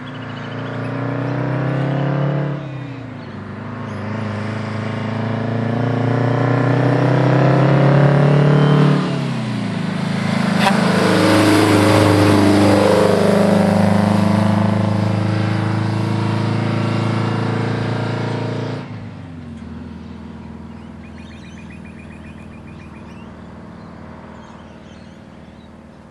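Kenworth S-925 truck's diesel engine accelerating through the gears: the engine note climbs, then drops at each gear change, about two and a half seconds in and again about nine seconds in. It is loudest as the truck passes, drops again after about nineteen seconds and fades as it drives away.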